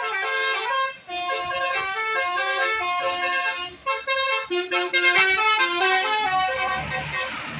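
Bus telolet horn, a multi-tone air horn, playing a tune of short stepped notes, with brief breaks about a second in and again near the middle.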